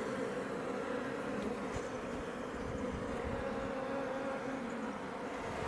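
Iberian honey bees buzzing in numbers at a Langstroth hive: a steady, even hum.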